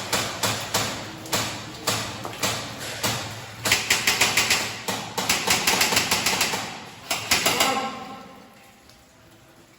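Airsoft guns firing in an underground mine tunnel: single shots about two a second, then several rapid full-auto bursts, with the firing dying away about eight seconds in.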